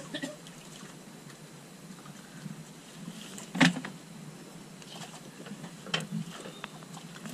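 Steady hiss of wind and water around a small fishing boat, broken by a sharp knock about three and a half seconds in and a softer one around six seconds.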